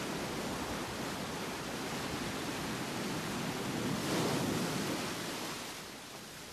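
Sea surf rushing as a steady hiss with some wind, swelling about four seconds in and fading near the end.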